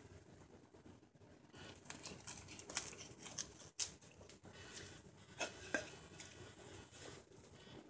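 Carving knife taking short slicing cuts into silver birch while shaping a ladle bowl: a few faint, scattered scraping strokes, the clearest in the middle and latter part.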